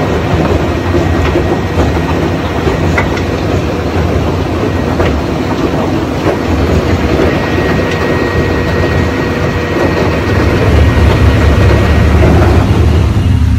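Tracked rock-crushing plant at work: a McCloskey J40 jaw crusher and its conveyor running, with crushed bedrock clattering off the belt into a TESAB 1150TC cone crusher's hopper. It is a loud, steady mechanical rumble with rattling stone and an occasional sharp knock. In the last few seconds the rumble grows heavier.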